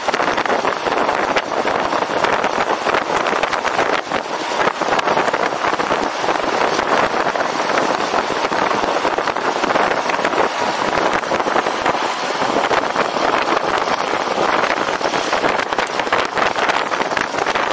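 Steady rush of wind on the microphone, mixed with tyre and road noise, from riding a personal electric vehicle.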